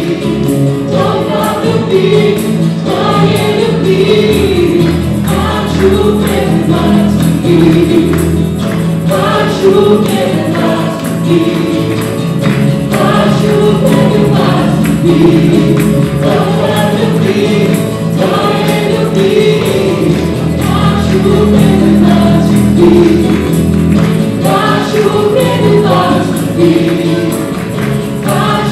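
Live worship band: a group of men and women singing a worship song together into microphones, backed by acoustic guitar, electric bass and keyboard, with a tambourine shaken along.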